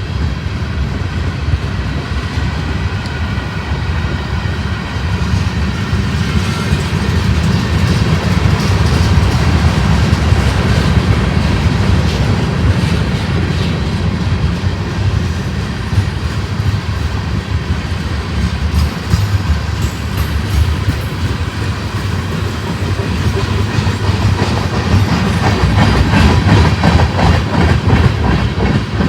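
Freight train rolling past, a steady rumble of wheels on rail with rapid clicking of wheels over the track, growing stronger near the end.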